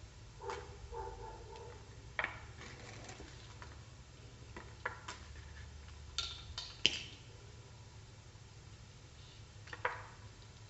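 Faint handling sounds as a head strap is fitted to a pair of plastic sports sunglasses: scattered light clicks and taps of the frame and strap ends, the sharpest a cluster about six to seven seconds in, with a few short squeaky sounds near the start.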